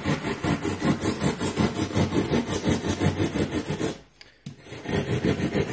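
Small toothed hand saw cutting into a block of green rigid foam board with quick back-and-forth strokes, making a starter notch. The sawing stops briefly about four seconds in, then starts again.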